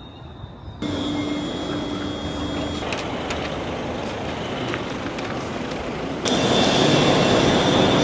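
Steady rumble and hiss of vehicle noise in separate clips that change abruptly about a second in and again near the end, where the last clip is louder.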